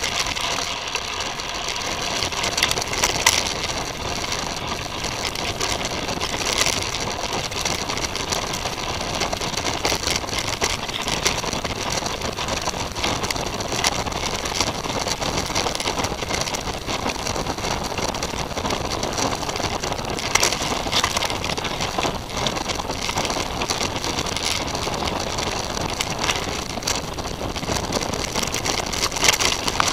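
Titus FTM mountain bike rolling fast along a bumpy dirt trail: a continuous rush of tyre and wind noise, with the bike rattling and knocking over the bumps.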